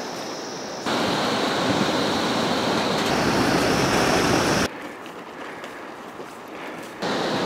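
Rushing stream water as a mountain bike rides through it, splashing over the rocks: a loud, even rush lasting about four seconds. About five seconds in it cuts off abruptly to a much quieter outdoor hiss, and the loud rush returns near the end.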